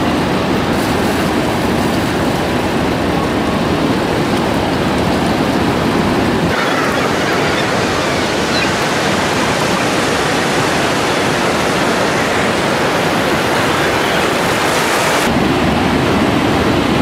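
Steady rush of ocean surf breaking on a sandy beach. About six and a half seconds in the sound turns brighter and thinner, and it returns to the fuller, deeper rush near the end.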